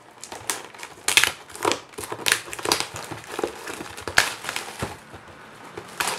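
Clear plastic shrink-wrap being pulled off a cardboard collectible box and crumpled by hand: a run of irregular crinkles and crackles, with sharper ones about a second, two seconds, four seconds and six seconds in.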